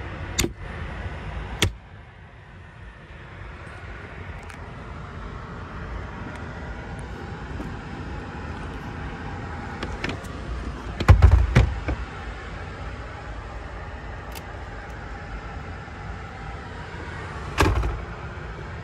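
Two sharp clicks, then a loud heavy thump a little past halfway and a second thump near the end: the third-row seat backs of a 2021 Dodge Journey SXT being unlatched and folded down flat in the cargo area. A steady low rumble runs underneath.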